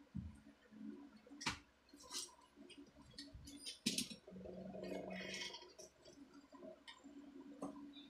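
Tools and metal parts being handled and set down: scattered clicks and knocks, the sharpest about a second and a half in and again near four seconds, with a low hum coming and going underneath.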